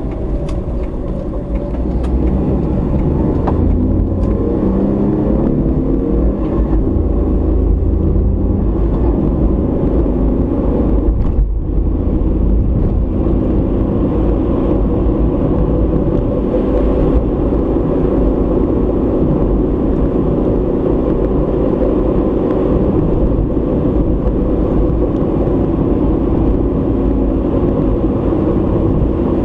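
A car driving, heard from inside the cabin: steady engine and tyre road noise.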